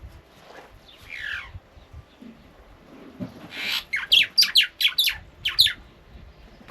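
Wild bird calling: a downward-sliding note about a second in, then a short harsh call followed by a quick run of about eight sharp, loud chirps.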